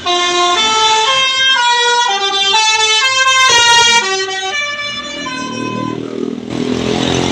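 Bus telolet horn (Basuri-type multi-tone horn) playing a loud melody of short held notes that step up and down about twice a second, stopping suddenly near the end. A bus engine running and rushing past follows.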